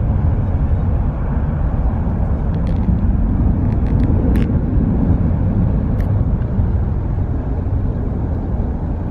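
Twin-engine jet airliner climbing out after takeoff, its engines giving a deep steady rumble that slowly fades as it moves away.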